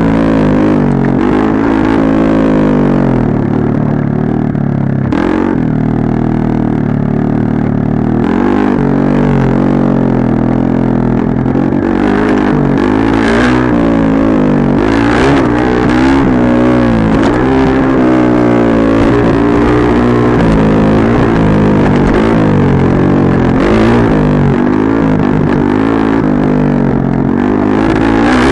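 Dirt bike engine running under way, its pitch rising and falling over and over as the throttle is opened and closed.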